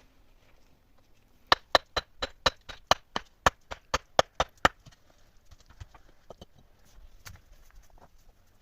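A run of about fourteen sharp, evenly spaced knocks, about four a second, starting about one and a half seconds in and lasting about three seconds, from a hand tool striking repeatedly during shelter building; a few fainter knocks follow.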